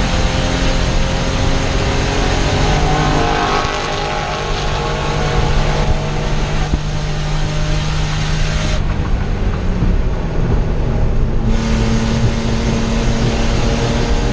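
BMW E30 race car's straight-six engine heard from inside the cabin, running hard at race pace. About nine seconds in the sound goes duller for nearly three seconds, then comes back at a slightly higher pitch.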